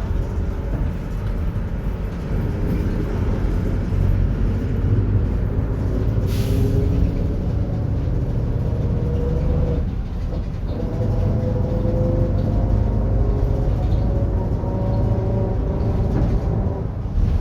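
Mercedes-Benz OF-1721 bus's differential growling over the running drivetrain as the bus drives: a whine that climbs in pitch with speed, breaks off briefly about ten seconds in, then climbs again. A short hiss about six seconds in.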